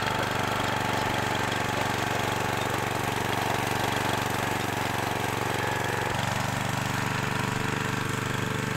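Small single-cylinder engine of a homemade shopping-cart go-kart running steadily as the kart is driven. Its note shifts slightly about six seconds in.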